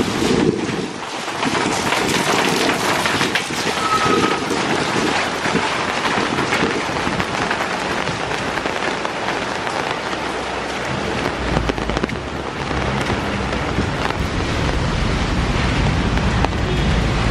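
Steady heavy rain falling on paving and on an umbrella overhead. A low rumble joins it from about halfway through.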